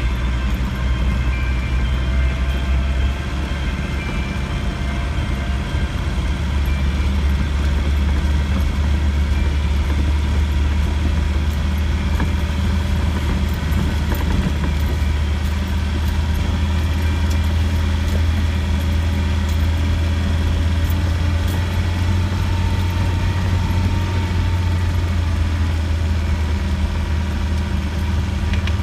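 Land Rover engine and drivetrain heard from inside the cabin while driving along a rough lane: a steady low drone with road noise, holding an even pace throughout.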